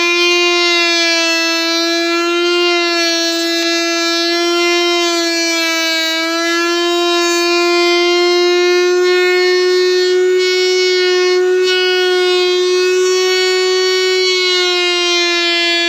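Table-mounted router running under load with a steady high whine, its pitch wavering slightly as a wooden strip is fed past the bit to cut a cornice molding profile.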